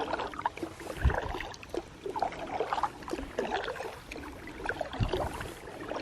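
Kayak paddle dipping and splashing in lake water, with small drips and trickles between strokes. Two dull low thumps sound, about a second in and again about five seconds in.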